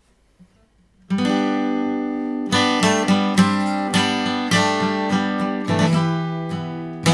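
Background music: acoustic guitar strumming chords. Near silence for about a second, then a chord rings out, and steady strummed chords follow from about two and a half seconds in.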